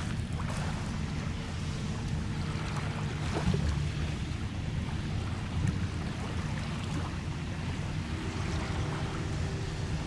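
Small lake waves lapping on a pebbly shore, a steady wash, with wind rumbling low on the microphone.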